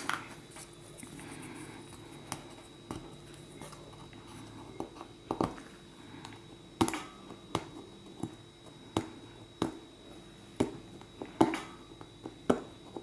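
Irregular small sharp clicks and taps of a plastic pry tool and fingertips working at the adhesive pull tabs of an iPhone 8 battery, a few at first and coming more often from about halfway through.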